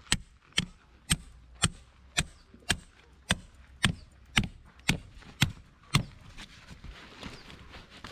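Repeated sharp blows of a hand tool striking in a steady rhythm, about two a second. About a dozen blows, then they stop about six seconds in.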